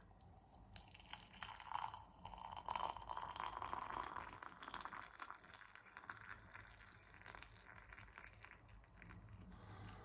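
Water being poured into a mug to brew tea: a faint, crackly trickling stream that starts about a second in and tails off after about six seconds.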